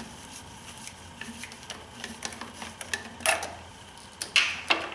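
Irregular small metallic clicks and a few sharper knocks near the end, from a hose clamp being tightened down on a BMW M52TU/M54 upper intake boot with a hand tool.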